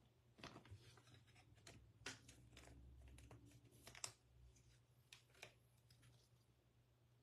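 Near silence with scattered faint clicks and taps of trading cards and packs being handled on a tabletop, the sharpest about four seconds in.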